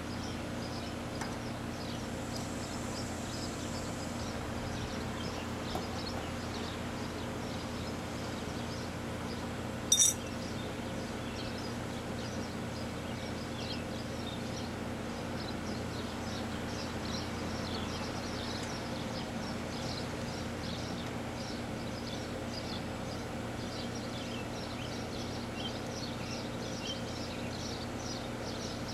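4-ton R-22 air-conditioner condensing unit running with its compressor on, a steady hum. A single sharp metallic click sounds about ten seconds in.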